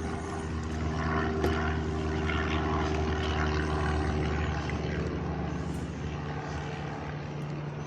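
A motor engine running steadily with a low drone, growing a little louder early on and easing off toward the end.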